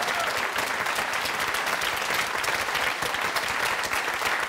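Studio audience applauding, many hands clapping at once at an even level.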